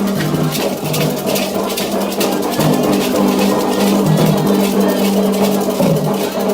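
Candomblé ceremonial music: drums and hand percussion keep a steady, fast rhythm of sharp strokes under held notes that shift in pitch.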